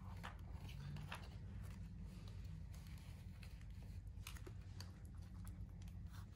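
Quiet room tone: a steady low hum with a few faint scattered clicks and rustles.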